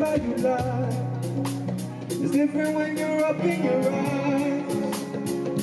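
Live band playing a song, with a steady cymbal beat on the drum kit, held bass notes, and a man's voice singing a wordless melodic line over it.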